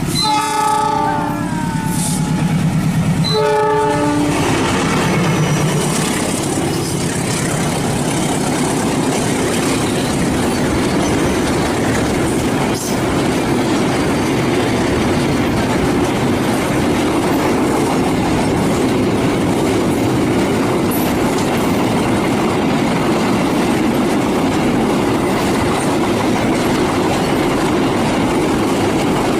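CC206 diesel locomotive sounding its horn for the semboyan 35 warning signal: a blast of about two seconds, then a short second blast. The train then rolls past with a steady rumble of wheels on the rails.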